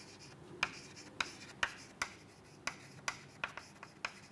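Chalk writing on a blackboard: a run of short, sharp taps, about two a second, with faint scratching between them.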